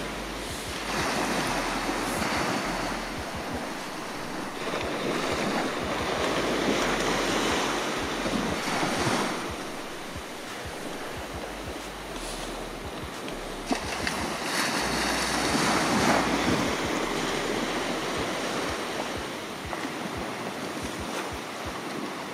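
Sea surf breaking on a sandy beach, the wash swelling and easing in slow surges every several seconds, with wind rumbling on the microphone. A single brief click about two-thirds of the way through.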